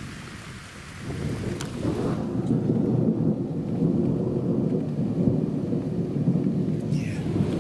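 Thunder rumbling low, swelling about a second in and rolling on steadily, with rain falling.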